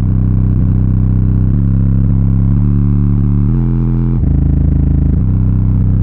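Kicker Solo-Baric L7 12-inch subwoofer in a ported box playing bass-heavy music loudly, a deep bass line stepping from note to note every half second or so.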